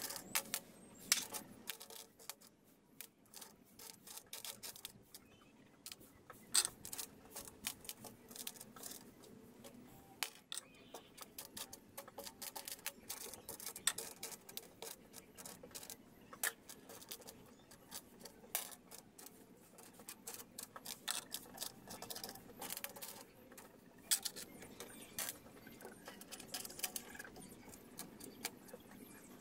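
Loose metal screws and bolts clinking against each other and the tabletop as they are raked through and picked up by hand from a pile. The clicks come irregularly, with a few sharper clinks standing out.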